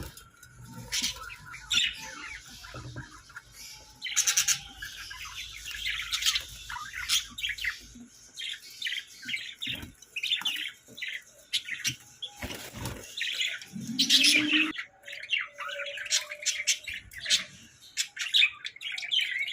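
Pet budgerigars chirping and chattering in quick, overlapping high calls, with occasional squawks.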